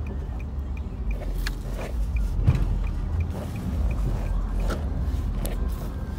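Car driving slowly, heard from inside the cabin: a steady low engine and road rumble, with a light, even ticking about three times a second. There is a knock about two and a half seconds in.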